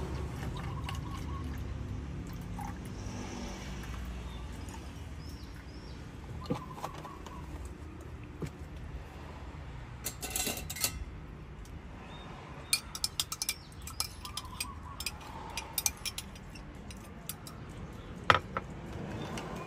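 Orange juice pouring from a carton into a plastic cup. Later comes a run of light clinks and taps as a metal spoon stirs in the cup, with the sharpest tap near the end. A low rumble fades out over the first few seconds.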